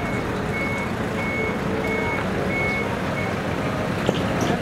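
Truck reversing alarm beeping, a high steady beep repeating about every 0.7 seconds and stopping a little past three seconds in, over a truck engine running.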